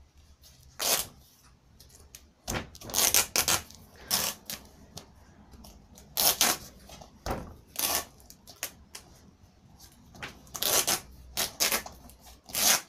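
Duct tape being pulled off the roll in a series of short rips, with pauses between, as it is wrapped around a football.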